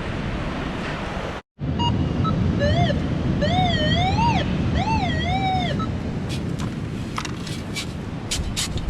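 Metal detector target tone, a pitched beep that rises and falls in pitch three times as the coil is swept back and forth over a buried metal object, over steady wind and surf noise. A few short sharp scrapes or clicks follow near the end.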